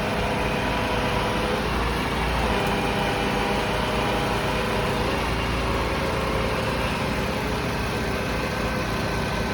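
Heavy work machine's engine running steadily, its tone shifting slightly now and then.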